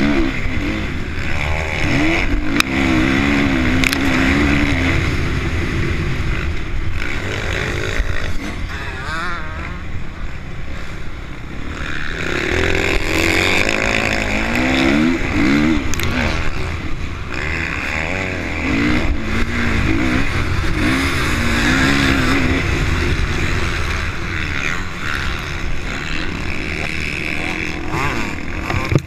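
Honda CRF450 four-stroke single-cylinder motocross engine, revving hard and dropping back again and again as the rider accelerates, shifts and shuts off through the corners. Wind rushes over the helmet-mounted microphone.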